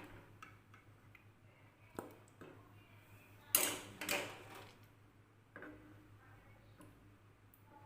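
Scattered clinks and scrapes of a spoon against dishes during plating: a sharp tick about two seconds in, a louder scrape around three and a half seconds, and a shorter one near six seconds, over a steady low hum.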